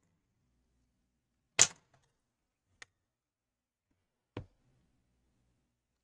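Sharp, isolated clicks and taps of small repair tools handled on an opened laptop: a loud click about one and a half seconds in, a faint tick a second later, and another click near four and a half seconds.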